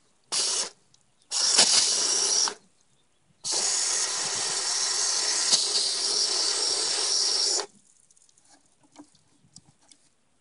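Spray of water hissing onto the hard plastic shell of a welding helmet in three bursts: a short one, one of about a second, then a long spray of about four seconds.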